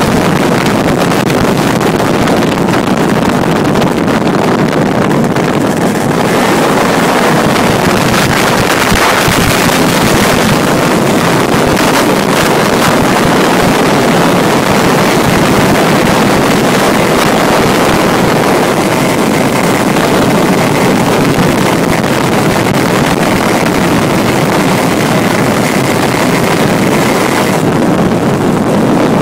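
Honda Dio ZX 50 cc two-stroke scooter engine of a road-legal go-kart running steadily at speed, with wind buffeting the microphone.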